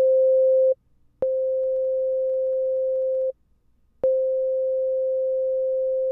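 Pure sine-wave test tone from Ableton's Operator synth, played back three times with short silent gaps, each start marked by a click. The later plays are quieter, turned down by Ableton's compressor in RMS mode, and the last one starts loud and drops to a steady lower level over about half a second as the compressor's attack catches up.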